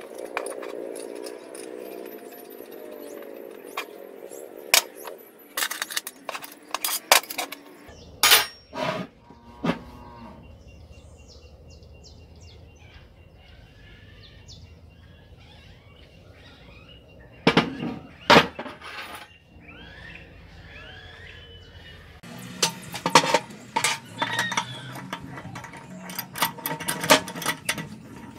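Steel parts of a homemade plate roller being handled and assembled: irregular metallic clinks, taps and knocks, with two hard knocks a little past the middle and a dense run of clicking near the end. A low, drawn-out call sounds at the start.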